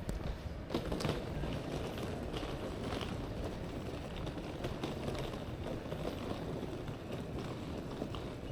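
Railway station concourse ambience: a steady low rumble with scattered light clicks and taps.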